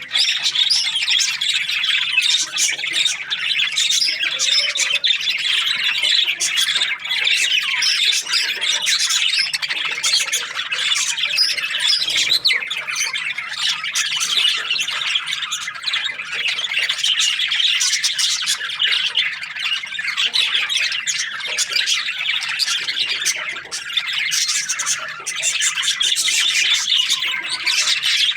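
A flock of budgerigars chattering and chirping, many birds calling at once in a continuous dense twittering with squawky notes.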